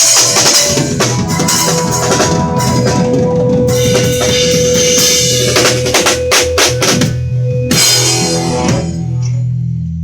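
Live band music led by a drum kit, with a held low note and a sustained mid tone. A quick drum fill comes past the middle, then a big final hit that rings out over a held low note as the song ends.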